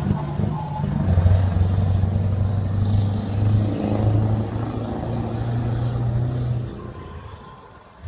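Scania V8 truck engine running with a steady low note, fading away about seven seconds in.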